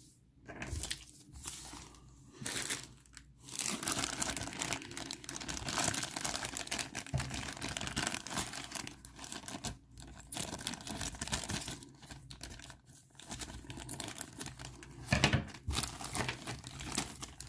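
Plastic packaging bags crinkling and tearing as they are handled and opened, in near-continuous spells with a few short pauses and a louder knock about fifteen seconds in.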